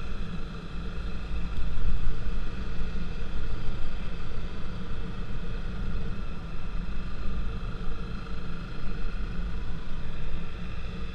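Steady travel noise from a moving vehicle: a continuous low rumble with faint steady tones above it, no distinct events.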